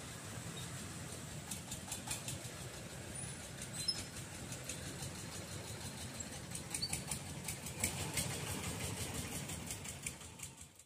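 Light road traffic: small motorcycle engines running steadily as motorbikes cross, with faint scattered ticks. The sound fades away just before the end.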